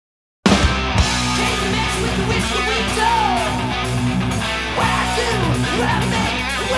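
Silence, then about half a second in a rock song starts abruptly: electric guitar over bass and drums, played loud.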